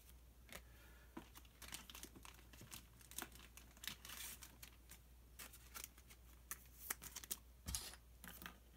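Faint, scattered crinkling of a Pokémon TCG booster pack's foil wrapper and cards being handled on a table, with a soft tap a little before the end.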